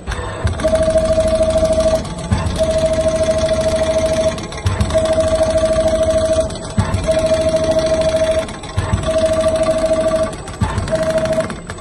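Automatic rotating-head sewing machine stitching leather: runs of rapid, even needle strokes over a steady high whine, each lasting a second or two, broken by short pauses marked by a low thump.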